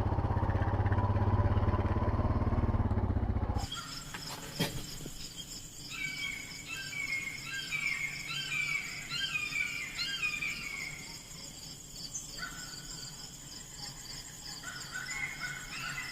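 A motor running with a steady low hum, cut off abruptly after about three and a half seconds. It gives way to birds chirping in short falling phrases over a steady high insect chorus.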